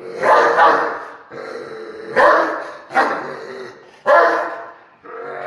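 Doberman pinscher barking angrily: a run of loud barks, two close together near the start and then single barks about a second apart, with low growling in the gaps.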